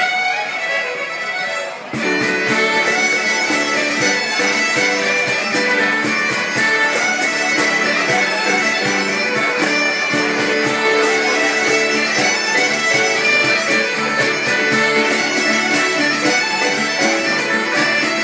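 Highland bagpipes playing a tune over their steady drones. They come in abruptly about two seconds in, after quieter music.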